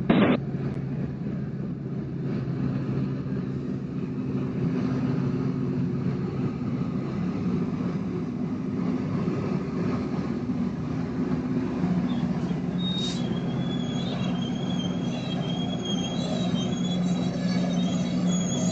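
Diesel engines of a train running steadily with a low drone. There is a sharp click at the very start, and about two-thirds of the way through a thin, wavering high squeal of steel wheels on the rail begins and carries on.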